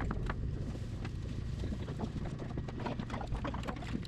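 Scattered light clicks and taps of chopsticks, spoons and tableware on dishes during a meal, over a steady low rumble of room noise.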